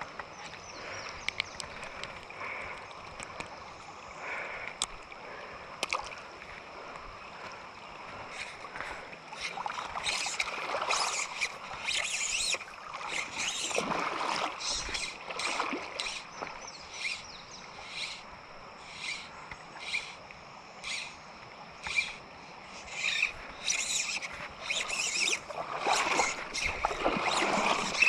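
River water running over rocks, with short splashy sloshes of water that come more often in the second half, roughly once a second near the end.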